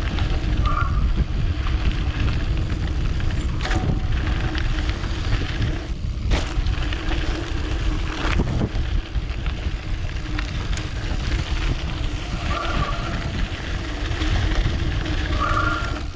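Mountain bike descending a dirt downhill trail: wind rushing over the action camera's microphone and tyres rumbling on the ground, with a few sharp knocks from the bike over bumps.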